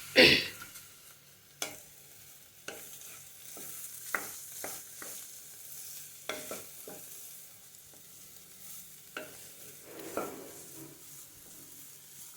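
Softened carrot pieces frying in a pan with a faint sizzle while a spatula stirs them, scraping and clicking against the pan a dozen or so times, loudest just at the start.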